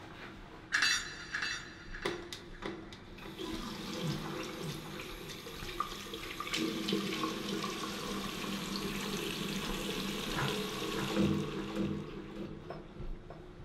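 Bathroom tap running into a sink: a steady stream starting about three seconds in and stopping near the end. It follows a few knocks and a short loud clatter in the first two seconds.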